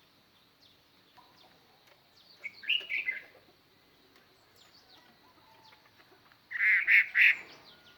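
Chinese hwamei, a caged decoy bird, singing to call in wild hwameis: two loud short bursts of song, one about two and a half seconds in and one near the end, with faint chirps between them.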